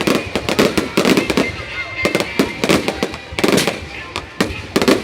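Fireworks going off in rapid, irregular succession: many sharp cracks and bangs close together, with voices underneath.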